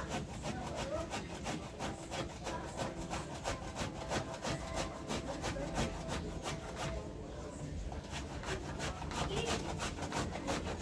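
Food being grated by hand on a metal grater over a pot: a steady rhythm of rasping strokes, a few each second.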